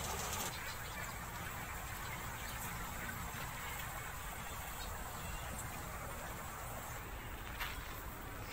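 Steady outdoor background noise with a low rumble, and a short click near the end.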